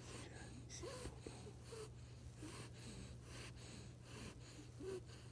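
A pet monkey breathing and snuffling faintly close to the microphone, with a few short, soft squeaks, over a low steady hum.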